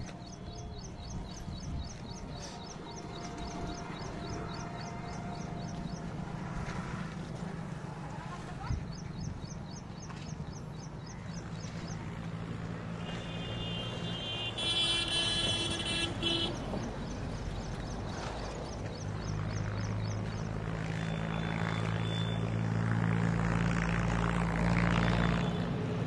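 A steady low engine hum that grows louder over the last several seconds, with runs of quick, high, repeated chirps above it and a brief high tone partway through.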